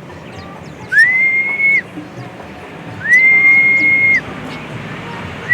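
Long, level whistle notes, each sliding up into a steady pitch and dropping away at the end. Two come about two seconds apart and a third begins at the very end, over faint high chirping of small birds.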